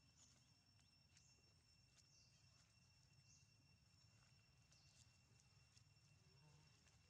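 Near silence: faint outdoor ambience with a thin steady high whine and a few faint, scattered high chirps and ticks.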